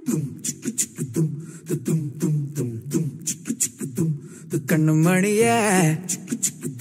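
Background song starting with quick, even vocal-percussion beats, several a second. About two-thirds of the way in, a singing voice comes in with wavering held notes, and the beats return near the end.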